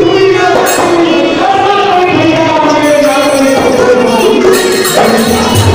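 A Holi folk song: a man singing into a microphone, accompanied by a hand-played dholak drum.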